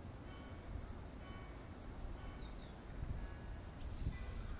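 Outdoor dawn ambience: a steady high drone of insects with short bird chirps over it, and low wind rumble on the microphone.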